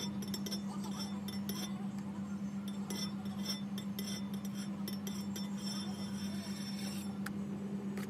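Light metallic clinks and taps from a metal palette knife against a metal cake turntable as whipped cream is smoothed around the cake, over a steady low hum.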